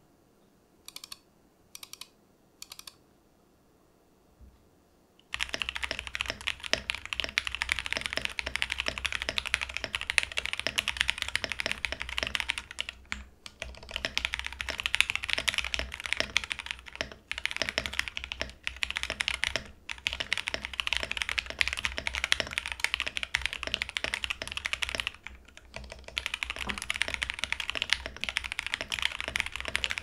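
Typing on a KBDFans Tofu 65 2.0 mechanical keyboard with Alpaca v2 linear switches on an FR4 plate in top mount, DCP Pegaso keycaps, and plate and case foam. Three separate clicks in the first three seconds, then fast continuous typing from about five seconds in, with a few brief pauses.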